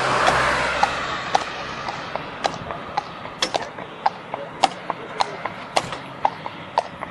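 Harness horse's hooves clip-clopping on asphalt, about two strikes a second, as it pulls a sulky. A passing vehicle's rush swells at the start and fades over the first two seconds.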